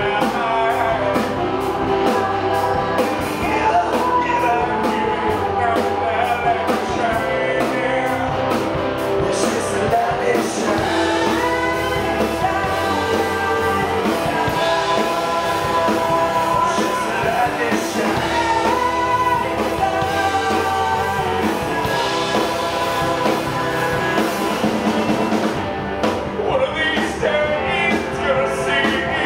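A live rock band playing a song: a male voice singing over drums, guitar and saxophone.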